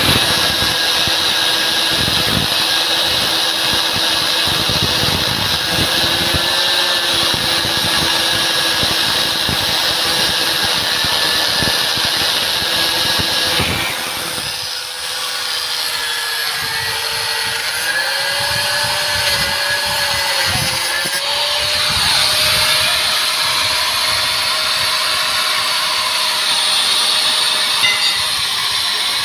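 Handheld electric angle grinder with an abrasive cut-off disc cutting through steel rebar, a continuous high motor whine over the hiss and rasp of the disc in the steel. The motor's pitch sags under the load of the cut and rises again as it runs freer, with a brief dip a little before halfway.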